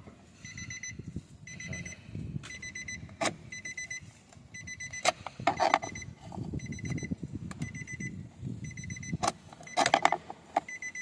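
An electronic beeper sounds short high beeps over and over, about once a second. Over it come sharp metal clicks and knocks from a tool being worked against the horn-pad retaining pins behind a steering wheel, loudest about three, five and ten seconds in.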